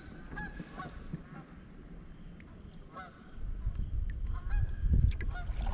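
Canada geese honking in flight: a scattering of short calls, clustered near the start, again about three seconds in, and again toward the end. Low wind rumble on the microphone grows louder about halfway through.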